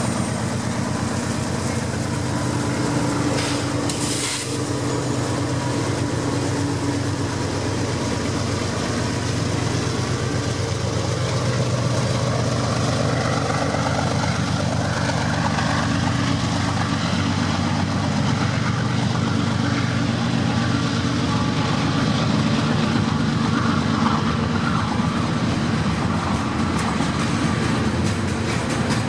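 A freight train passing close by. Its trailing diesel-electric locomotives rumble past in the first seconds, then loaded hopper and tank cars roll by with steady wheel-on-rail noise. A brief clank comes about four seconds in.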